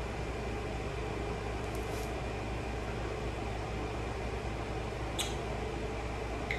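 Steady indoor background hum, like an air conditioner or fan running, with a faint short click about five seconds in.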